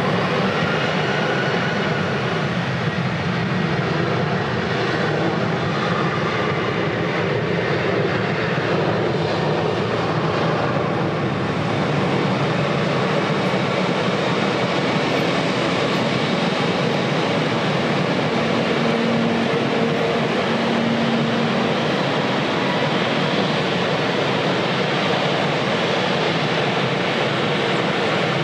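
Jet airliner engine noise: a steady, even rush that holds level throughout, with faint tones in it.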